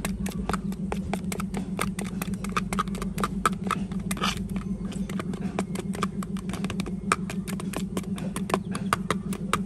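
A thin stick stirring a thick mixture in a small plastic cup, clicking and ticking against the cup's wall several times a second, over a steady low hum.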